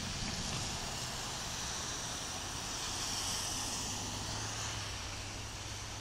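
Car tyres hissing on a snow-covered road as traffic passes, swelling to a peak about three seconds in and then fading, over a steady low hum.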